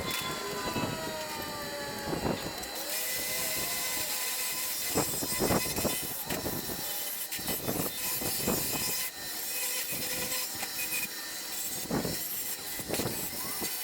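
Power grinder, most likely an angle grinder, grinding mill scale off steel in repeated passes; the grinding hiss grows stronger about three seconds in.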